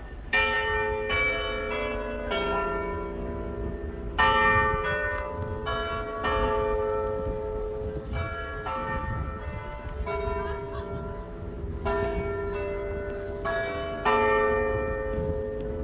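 Clock tower bells in Paisley town centre chiming the hour tune: four groups of four struck notes at different pitches, each group about two seconds long with a short pause between, every strike ringing on into the next.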